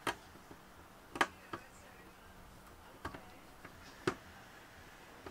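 About five sharp metallic clicks at uneven intervals: a screwdriver working the screws of the metal hard-drive cage inside an all-in-one PC.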